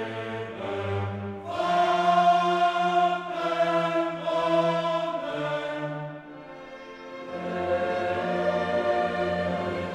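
Background choral music: voices holding slow, sustained chords that shift every second or so, with a softer passage a little past the middle.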